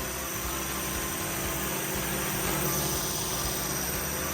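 Air Hogs Gravitor toy drone in flight, its small electric motor and propeller whirring steadily.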